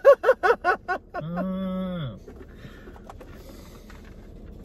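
A man laughing in quick, rapid pulses, followed by a long low drawn-out vocal sound of about a second that drops in pitch at its end; then only quiet car-cabin background.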